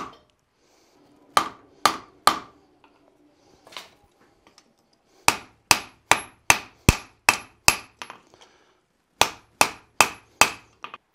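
Hand hammer striking a red-hot steel axe body on an anvil. Three blows, a pause, a quick run of about nine blows at roughly two and a half a second, then four more and a couple of light taps, with a faint high ring on the later strikes.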